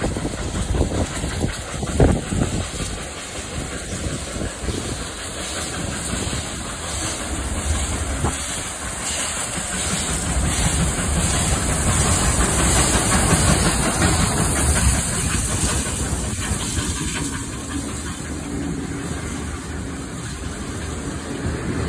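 Victorian Railways R class steam locomotive R711 running through the station with steam hissing, loudest as the engine goes by about halfway through. Its red passenger carriages then roll past.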